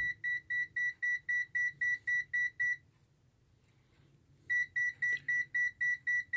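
Zoyi ZT-702S multimeter's overload alarm: a rapid high-pitched beeping, about five beeps a second, because the milliamp current range reads overload. The beeping stops about three seconds in and starts again about a second and a half later.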